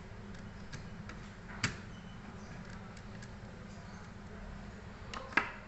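Small clicks and knocks of laptop parts being handled, likely the 250 GB hard drive being set back into the netbook. There are two sharper, louder clicks, one about a second and a half in and one near the end, over a steady low hum.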